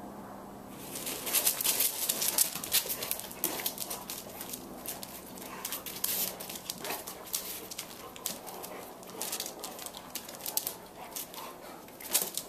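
Two otterhounds playing together: a busy run of quick scuffling noises with the occasional dog whimper, starting about a second in.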